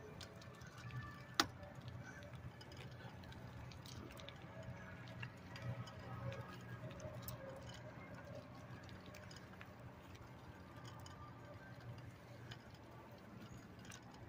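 Faint, uneven small ticks and clicks over a low steady hum, with one sharp click about one and a half seconds in.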